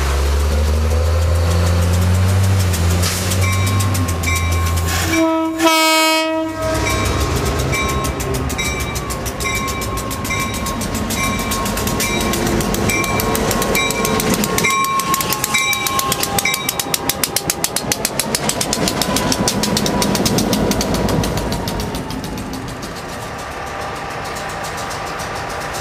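A truck engine rumbles past, then a diesel locomotive's horn gives one short blast about five seconds in. A bell dings about once a second for roughly ten seconds after that, while the locomotive rolls by with its wheels clattering over the rails.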